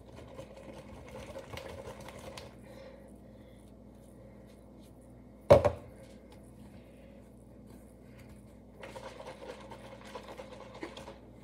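Cloth towel wiping up a spill: scratchy rubbing in bursts, with a single loud knock about halfway through and more rubbing and handling noise near the end.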